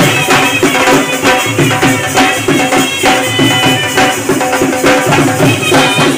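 Dhol drums beaten with sticks in a steady, driving rhythm, with a melody instrument holding long notes over the beat.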